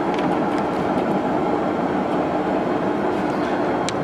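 Steady machinery noise: a continuous mechanical hum and whir with a few faint ticks.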